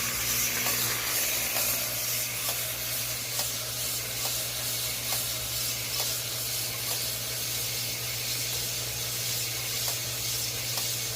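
Homemade engine hone running: a corded drill spins a cylinder honing attachment with a steady hiss and hum while a wiper motor drives it up and down, with a faint tick about once a second.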